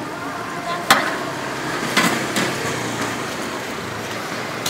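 Metal tongs clicking against a wire charcoal-grill grate as meat is turned: about three sharp clicks, over steady street traffic noise.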